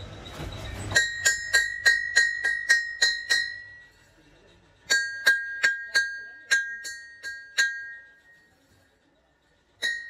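Hand hammer striking a cast metal truck wheel hub in quick runs of about nine blows, roughly three a second. Each blow rings on with a clear, bell-like metallic tone. A pause of about a second falls between runs, and a third run starts near the end.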